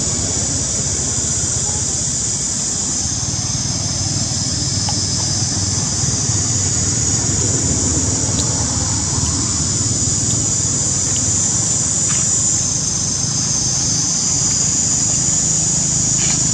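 Steady outdoor background noise: a constant high hiss over a low rumble, with a few faint ticks.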